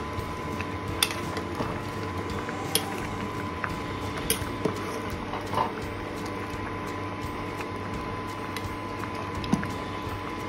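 A steel ladle clinking sharply against a steel cooking pot several times as lentil-and-vegetable dalma is stirred, over the steady bubbling of the pot at the boil.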